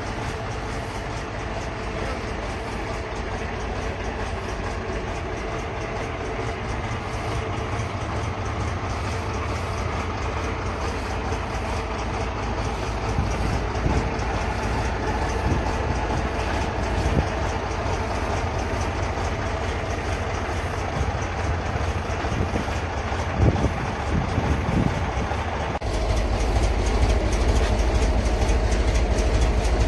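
YaMZ-236M2 V6 diesel engine of a MAZ-5551 truck running steadily with a rhythmic clatter. A few knocks come just before the end, and the deep rumble steps up louder near the end.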